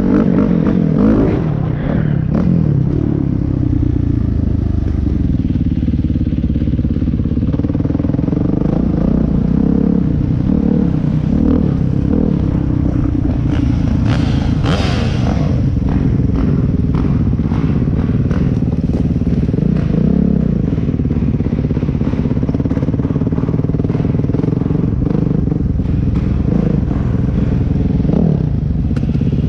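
Dirt bike engine running at a steady, moderate throttle, heard close up from the rider's position, with clatter over rough ground and a brief hiss about halfway through.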